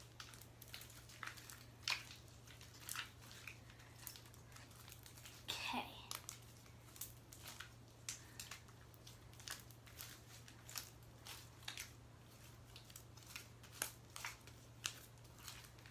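Sticky slime being kneaded and pulled by hand, giving faint, irregular clicks and small wet pops as it sticks to and peels off the fingers.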